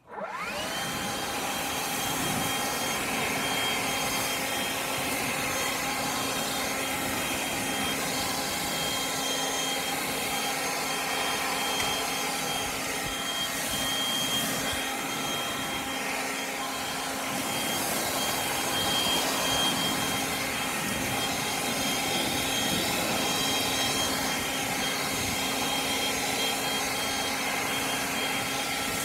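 Stihl BGA 56 cordless battery leaf blower spinning up and then running steadily at full speed: a high fan whine over a broad rush of air as it blows leaves across grass.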